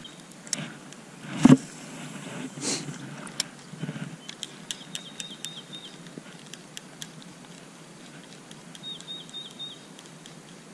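A rod and spinning reel being handled: a thump about a second and a half in, a few softer knocks, then scattered light clicks from the reel. A bird chirps in two quick runs of four or five high notes.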